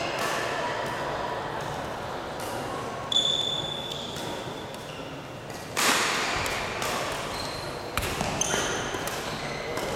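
Play in an indoor sports hall: several sharp hits spaced irregularly, the loudest about six seconds in, with short high squeaks like sports shoes on a court floor and a hollow hall echo.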